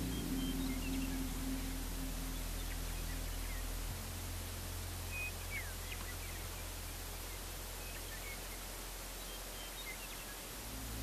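Outdoor ambience with scattered short, high chirps of distant birds over a low steady hum. A held music drone fades out in the first second or two.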